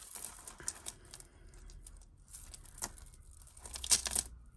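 Costume jewellery chains and beads clinking and rustling as they are untangled by hand, with scattered small clicks and a louder cluster of clicks near the end.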